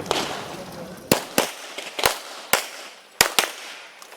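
Handgun shots fired in a USPSA practical shooting stage: about seven sharp shots, some in quick pairs about a quarter second apart, with short gaps between strings.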